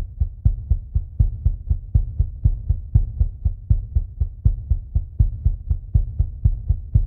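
A steady, low, thumping pulse on the soundtrack, about four beats a second, fading out near the end.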